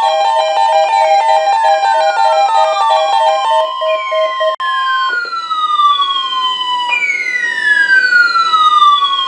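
Several NOAA weather radios sounding their alarms for a Required Weekly Test: rapid beeping in a few pitches that stops about four seconds in, over a siren-like falling sweep that repeats about every second and a half.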